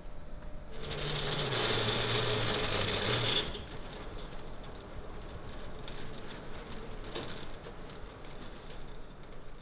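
Metal roller shutter door rolling up. It runs loudly with a low hum for about two and a half seconds, stops abruptly, and is followed by quieter rattling and clicking of the slats.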